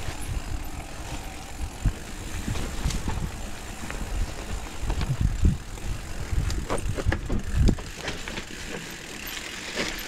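Mountain bike riding down a rough dirt forest singletrack: tyre noise over dirt and roots, with irregular low thumps and scattered clicks and rattles from the bike over bumps.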